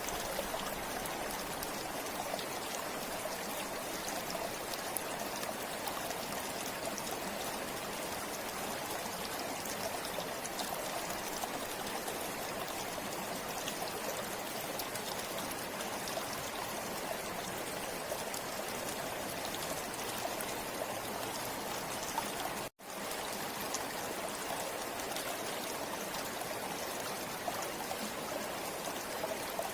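Forest river flowing steadily: an even rush of water with fine splashing. The sound cuts out completely for an instant about three-quarters of the way through.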